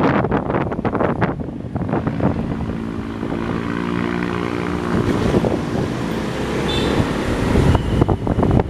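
Wind buffeting the microphone, then a vehicle engine running steadily for several seconds in the middle, before the wind buffeting comes back near the end.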